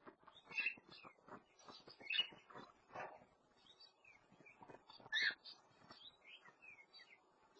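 Pet birds in an aviary chirping: a busy mix of short chirps and quick falling whistles, mixed with scattered light ticks.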